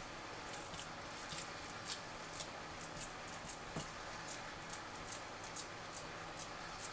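A silicone spatula spreading and patting raw sausage-meat filling into a pastry-lined dish: faint, irregular soft squelching dabs, two or three a second.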